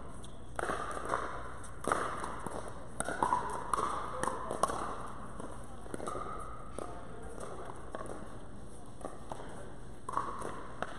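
Pickleball paddles striking a hard plastic ball, a few sharp pops about a second apart in the first half, with players talking.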